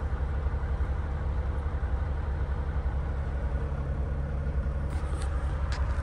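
Semi-truck's diesel engine running with a steady low rumble, heard from inside the cab.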